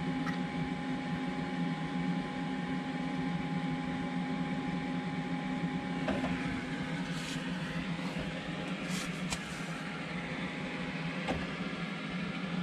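Cooling fan running with a steady hum, drawing fresh air through the fridge compartment, with a few faint knocks partway through.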